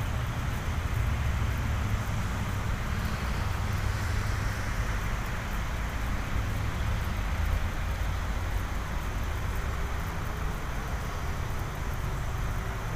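Steady road traffic noise with a low rumble, swelling a little about a third of the way in as a vehicle goes by.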